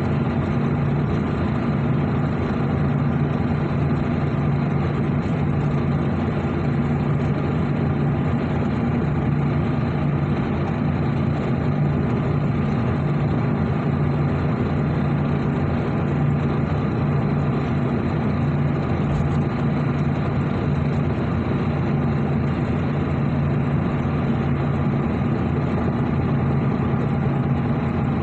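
An engine running steadily at an even speed: a low, unchanging hum.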